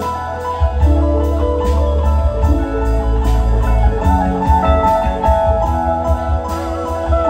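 Live band playing an instrumental passage: drum kit with regular cymbal hits, electric bass, electric guitars, keyboards and pedal steel guitar, with sustained melodic notes over the beat.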